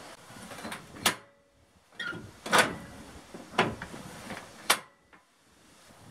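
A run of sharp metal clanks and knocks, about six, spaced irregularly, from steel mower frame and linkage parts being handled.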